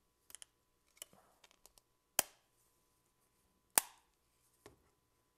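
Sharp plastic clicks and taps from a Garmin Nuvi 40 GPS's front housing being handled for reassembly: a few light ticks, then two louder clicks about two and four seconds in, and a softer one near the end.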